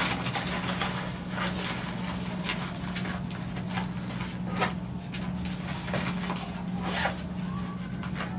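Scattered rustles and light clicks of the tripod kit and its carrying bag being handled, over a steady low hum.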